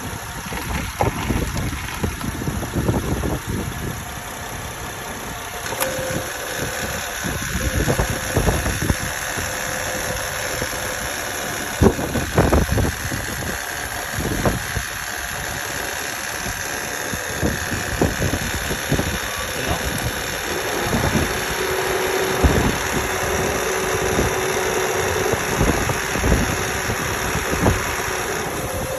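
2008 Honda Odyssey EX's V6 engine idling, with irregular low knocks throughout. This is the engine noise heard after the timing belt was changed.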